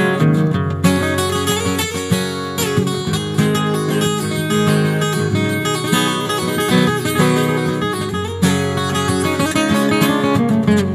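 Background music: a strummed acoustic guitar playing chords at a steady, even level.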